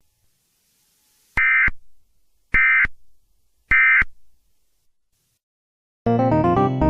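Emergency Alert System end-of-message data bursts: three short, shrill digital bursts about a second apart. About six seconds in, loud keyboard music starts.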